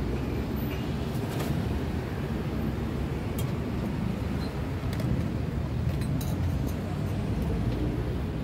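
Steady rumble of road traffic, with a few light clinks of spoons against stainless-steel cups.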